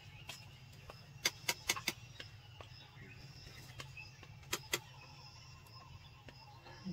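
Sharp clicks or taps: a quick run of about five roughly a second in, then two more a little after four seconds, over a steady low hum.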